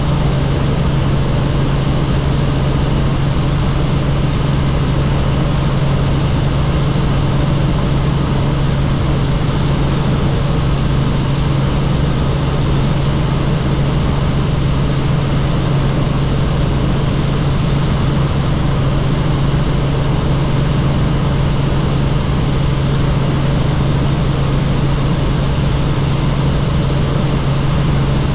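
Helicopter in flight, a steady loud drone with a strong low hum that does not change.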